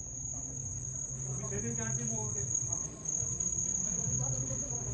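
Crickets trilling steadily, a high-pitched unbroken tone that drops out briefly about three seconds in, over a low steady hum and faint voices.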